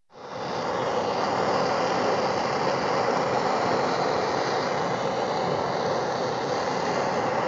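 Handheld butane blowtorch flame running with a steady rushing hiss as it plays on a block of dry ice; the sound comes in abruptly right at the start.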